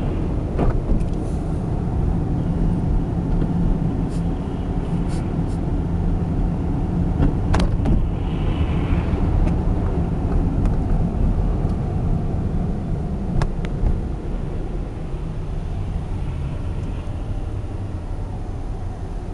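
Steady low rumble of a car driving, heard from inside the cabin: engine and road noise on a snowy street, with a few short sharp knocks scattered through it.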